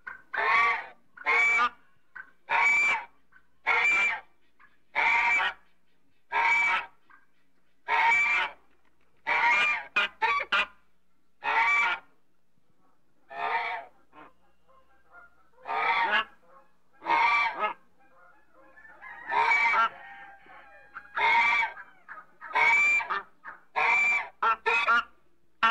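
African goose honking over and over: loud, harsh honks about one a second, some coming in quick pairs, with softer low calls between the honks near the end.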